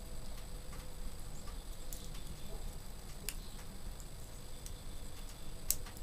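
Wood fire burning in an open wood stove, crackling with a few scattered sharp pops, the loudest near the end.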